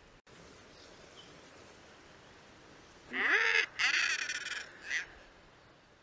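Common murre giving harsh, croaking calls over a faint background hiss: a call rising in pitch about three seconds in, a longer rasping call right after it, and a short call near the end.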